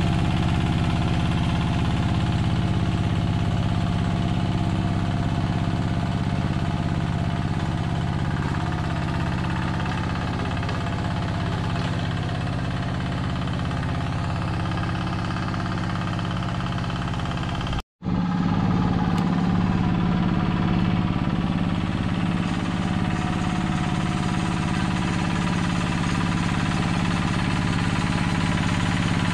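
Yanmar two-wheel hand tractor's single-cylinder diesel engine running steadily while plowing a flooded rice paddy. The sound breaks off for an instant a little over halfway through, then carries on.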